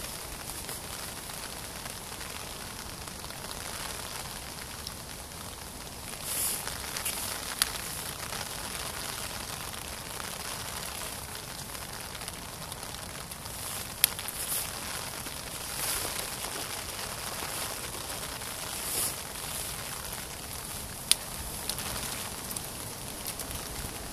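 Rain falling steadily as an even pattering hiss, with three sharp ticks standing out from it.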